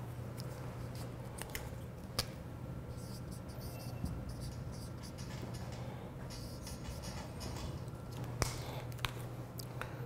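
Felt-tip whiteboard marker squeaking and scratching across a whiteboard in short strokes as letters are written, with a few sharp clicks of the pen, over a steady low room hum.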